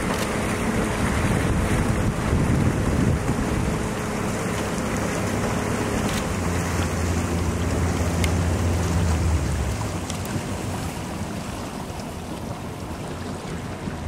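Wind rumbling on the microphone over moving river water while an elephant wades through the river. A low steady hum comes in for a few seconds in the middle.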